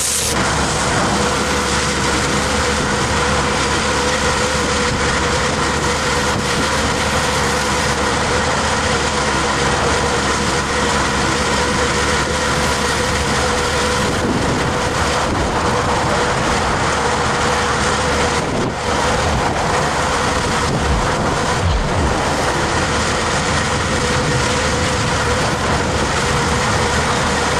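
Hydroseeding machine's engine and slurry pump running with a steady drone and hiss while the green slurry sprays from the hose.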